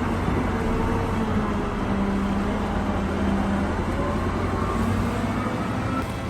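Large diesel engine of heavy machinery running steadily, its tone shifting up and down a little a few times.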